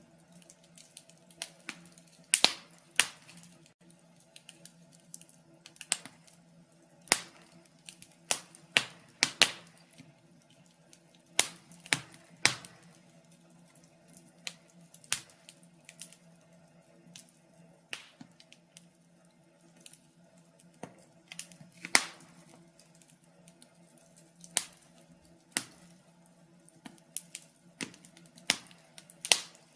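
Fireplace fire crackling: sharp, irregular pops, about one or two a second, some louder than others, over a faint steady low hum.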